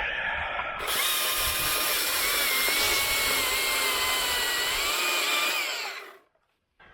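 Husqvarna T542i battery top-handle chainsaw running, a steady motor whine whose pitch wavers slightly as it cuts through wood. It starts sharply about a second in and stops near the end.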